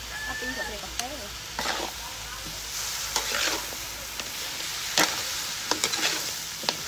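Chicken pieces sizzling in a steel wok while a metal spatula stirs and tosses them, with sharp clanks and scrapes of the spatula against the pan, the loudest clank about five seconds in.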